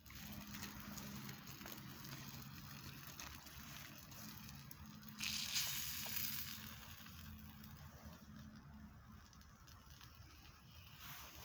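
Small wood campfire crackling and hissing, with scattered small snaps. A louder rush of hiss comes about five seconds in and fades over a second or so.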